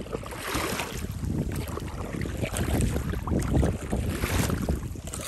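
Wind buffeting the microphone in a low rumble, over choppy lake water lapping and splashing.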